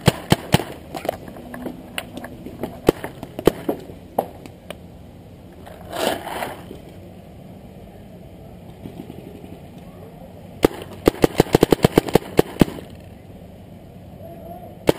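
Paintball markers firing: scattered single shots over the first few seconds, then a rapid string of about a dozen shots near the end. A brief rush of noise comes about six seconds in.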